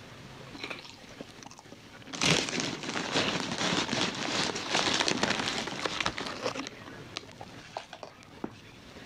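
Person eating crunchy food close to the microphone: loud crunching and crackling starting about two seconds in and lasting around four seconds, with plastic packaging crinkling.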